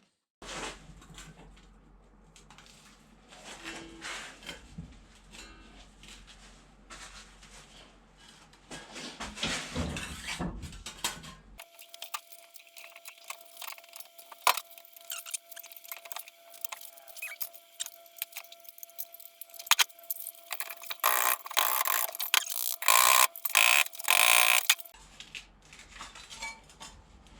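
A small sheet-steel piece being bent and worked by hand: irregular metallic clinks, taps and knocks, growing busier and louder toward the end.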